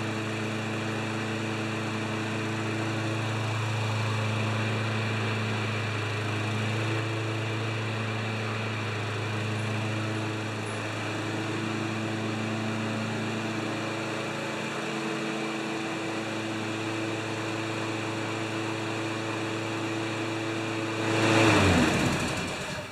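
Briggs & Stratton Quantum 190cc single-cylinder engine on a Craftsman push mower running steadily at speed. Near the end it swells louder briefly, then winds down and stops.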